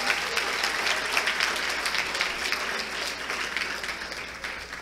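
Audience applauding for a winner just announced, a steady patter of many hands clapping that gradually dies away near the end.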